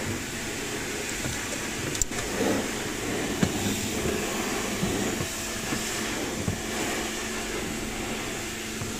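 A steady background hum and hiss, with a few short plastic clicks and knocks as wiring connectors are handled under a car dashboard, the sharpest about two seconds in.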